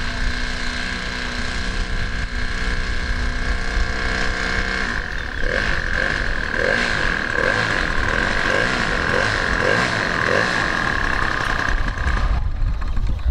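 Petrol engine of a giant-scale RC Piper J-3 Cub model running at low throttle as it taxis over grass, its note wavering about twice a second in the middle, then cutting off suddenly near the end as the engine is shut down. Wind rumbles on the microphone throughout.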